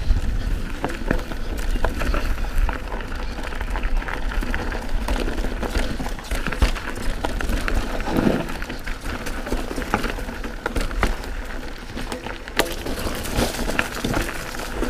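Canyon Spectral AL 7.0 full-suspension mountain bike descending a dry, rocky singletrack: tyres crunching over loose stones and the bike clattering in an uneven run of clicks and knocks, over a steady low rumble.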